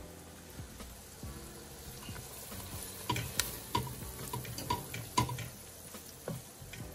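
Diced onions and garlic sizzling in oil in a stainless steel pot. From about three seconds in, a wooden spoon stirs them, with repeated scrapes and knocks against the metal pot.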